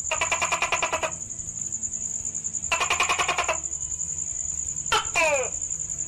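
Tokay gecko calling: two rattling runs of quick pulses, then, about five seconds in, a two-part call made of a short sharp note followed by a falling one. A steady high-pitched whine runs underneath.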